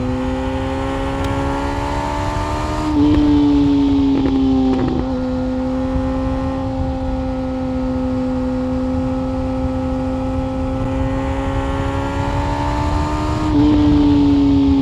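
Yamaha FZ1 Fazer inline-four engine running at speed through an SC-Project exhaust, its note climbing slowly. The note breaks and jumps louder about three seconds in and again near the end, then settles into a steady pull.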